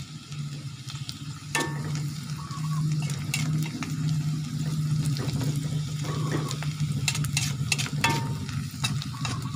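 Sliced garlic and shallots sizzling in hot oil in a wok while a metal spatula stirs them, scraping and clicking against the pan, with a quick run of scrapes about seven to eight seconds in. A steady low hum runs underneath.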